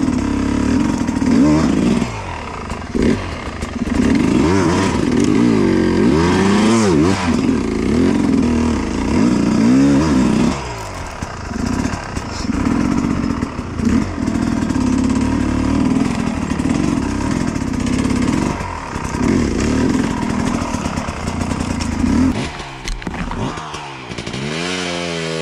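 Dirt bike engine, heard close from the rider's helmet, revving up and down as the throttle is worked over rough ground. The revs fall away briefly several times.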